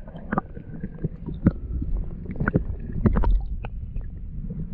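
Flowing river heard with the microphone underwater: a muffled low rumble with scattered clicks and knocks.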